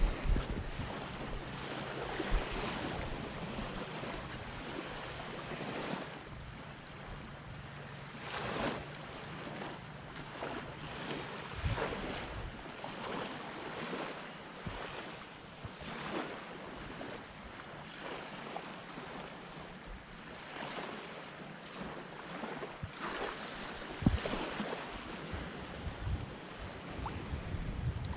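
Small waves lapping and washing onto a sandy shoreline, with wind buffeting the microphone in gusts. A faint low hum runs through the first half, and a single sharp knock comes near the end.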